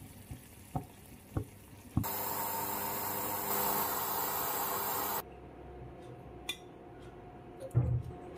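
A few soft pops from a pan of curry simmering, then a steady loud hiss of steam from a stainless-steel puttu steamer for about three seconds, which cuts off suddenly. Near the end there is a dull knock as the steamed rice puttu is pushed out of the steel tube onto a ceramic plate.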